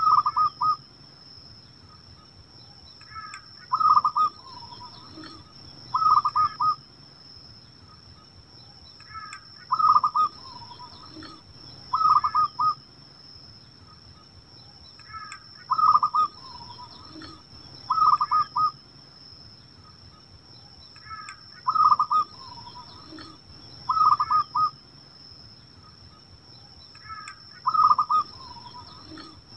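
Zebra dove (perkutut) cooing: short phrases of quick, rippling coos, coming in pairs about two seconds apart and repeating about every six seconds. A steady high-pitched whine runs underneath.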